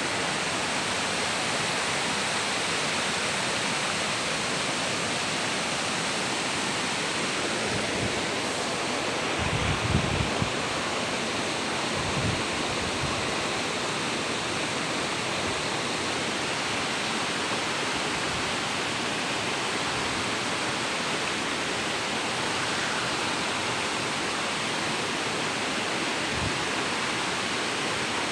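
Shallow rocky stream rushing over stones, a steady rush of water. A few dull low thumps about ten seconds in, and once more near the end.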